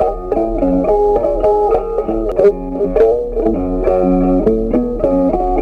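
Background music: a plucked guitar playing a melody of short, quickly changing notes.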